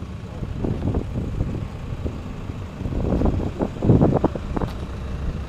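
An engine idling with a steady low rumble and wind on the microphone. There are irregular louder surges from about halfway through.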